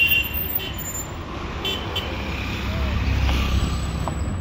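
Safari vehicle driving on a jungle track: a steady low engine and road rumble that grows louder in the second half.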